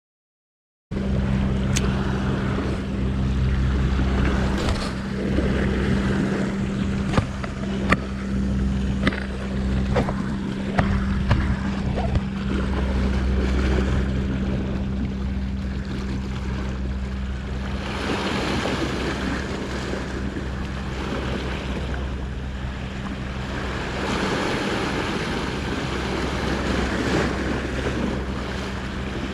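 Wind and surf on a rocky sea shore, with a steady low engine-like hum throughout and scattered sharp clicks in the first half, after about a second of silence at the start.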